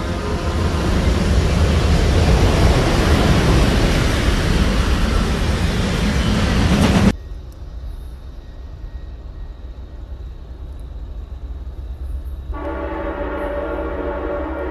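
Freight train rolling past close by, a loud steady rumble of rail cars on the track that ends abruptly about seven seconds in and gives way to a quieter low rumble. Near the end a locomotive air horn starts sounding a steady multi-note chord.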